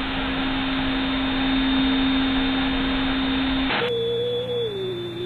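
Electrical interference on the audio feed, a loud hiss with a steady low tone. About three and a half seconds in it switches to a wavering tone. The lightning strike is disrupting the debate hall's sound system.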